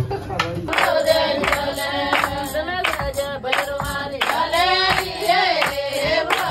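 A group of voices singing together with handclaps keeping time.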